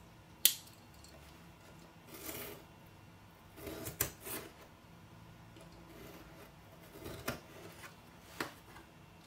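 A folding utility knife clicks sharply open, then its blade slices through packing tape on a small cardboard box in a few short cutting strokes. Near the end it gives a couple of clicks as the blade is folded shut.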